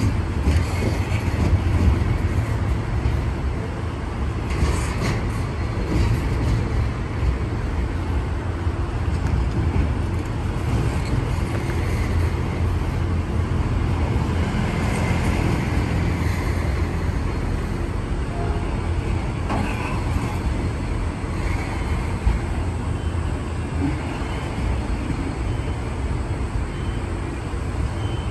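Steady low rumble of a vehicle running, with a few faint clicks about five seconds in.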